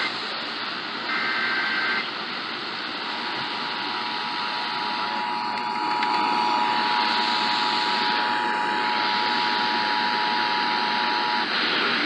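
Emergency Alert System Severe Thunderstorm Warning through an FM clock radio's speaker: a short SAME data burst about a second in ends the alert header, then the steady two-tone attention signal starts about three seconds in and stops shortly before the end, over a constant radio hiss.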